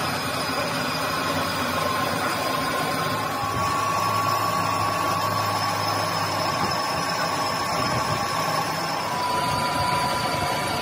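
Metal lathe running steadily while a boring bar cuts the bore of a CNG compressor's inner gas jacket: an even machine drone with a thin, steady high whine over it.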